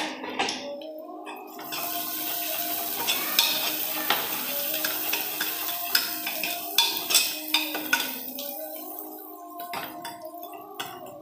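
Chopped onions sizzling in hot oil in a steel pot while being stirred with a spoon, which clicks and scrapes against the pot. The sizzle swells from about two seconds in and dies down after about eight seconds.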